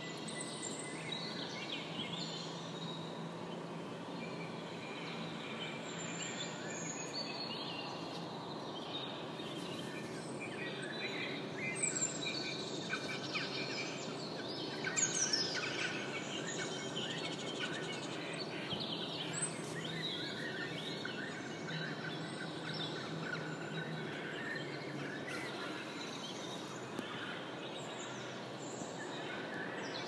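Many birds chirping and calling at once, short overlapping chirps and whistles over a steady background hum, like a busy aviary.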